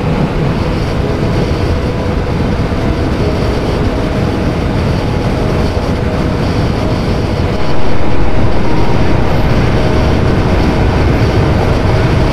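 Strong wind noise buffeting a motorcycle rider's microphone at speed, with the motorcycle engine running steadily underneath. It gets louder a little over halfway through.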